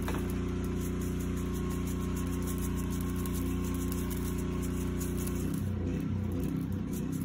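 A motor running with a steady hum, its drone turning uneven about five and a half seconds in.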